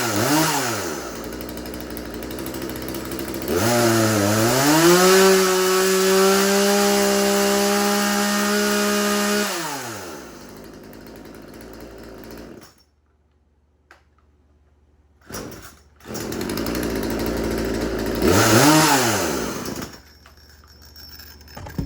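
Craftsman 36cc two-stroke chainsaw revving: it is blipped, idles, then is held at full throttle at a steady high pitch for about six seconds before falling back and cutting out around the middle. It runs again near the end with one more quick rev, then drops away. The saw is struggling, which the owner puts down to the fuel filter not reaching the bottom of the tank.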